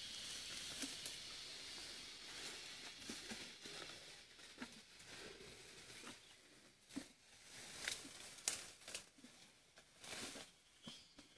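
Asian elephants feeding in dense bamboo undergrowth: irregular rustling, with snapping and tearing of leaves and stems as they pull and break off foliage.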